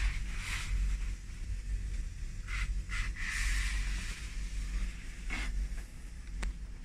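Steady low rumble, with short rustling and brushing noises now and then as a fabric shower curtain is pushed aside and the phone is handled.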